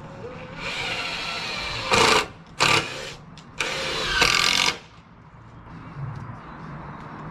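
Power drill running in three trigger-controlled bursts, the last about a second long, after a quieter stretch of running.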